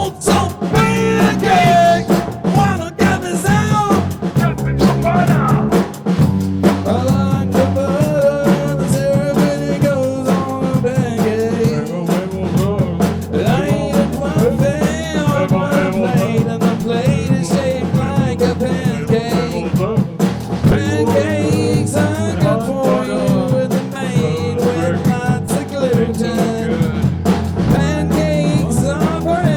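Rock band playing an instrumental passage: a wavering lead line over steady bass and drums.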